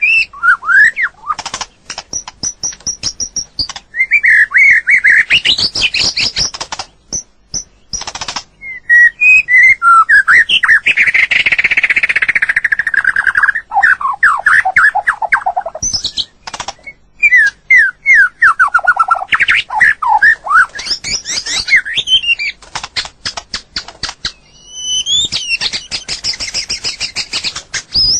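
White-rumped shama singing: a run of varied, loud whistled phrases that sweep up and down, mixed with fast rattling notes, phrase after phrase with short pauses between.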